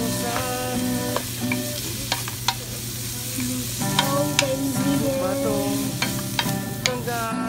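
Mixed vegetables stir-frying in a stainless steel pan: a steady sizzle, with a spatula scraping and knocking against the pan several times. A melody of background music plays along with it.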